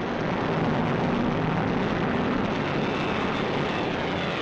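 Lockheed P-38's twin V-12 engines running at speed as the fighter makes a low pass, the pitch falling near the end as it goes by.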